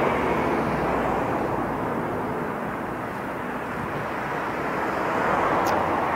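Steady rushing outdoor background noise, dipping slightly in the middle and swelling again toward the end.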